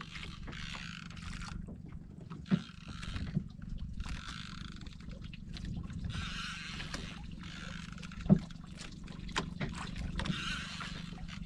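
Sea water sloshing against the hull of a small outrigger boat in repeated surges every second or two, over a steady low hum. A few sharp knocks, the loudest about eight seconds in.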